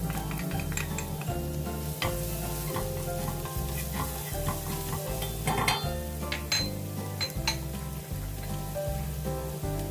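Chopped garlic and ginger sizzling in hot cooking oil while being stirred, a utensil clicking and scraping against the pan now and then.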